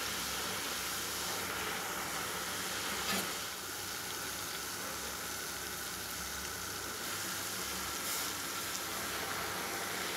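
Hot oil sizzling steadily as batter on a rosette iron deep-fries into a rosette waffle.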